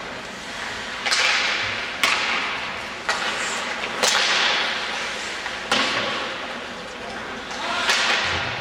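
Ice hockey play: about six sharp cracks of sticks, puck and boards, each trailing off in a hissing echo in the rink.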